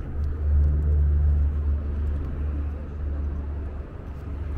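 A motor vehicle's low engine rumble, strongest in the first two seconds and dying down about four seconds in.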